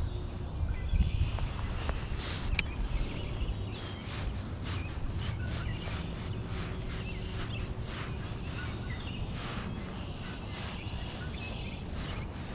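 Spinning reel being cranked on a retrieve, a soft steady ticking of about three ticks a second, with a sharp click about two and a half seconds in. Birds chirp faintly over a steady low rumble.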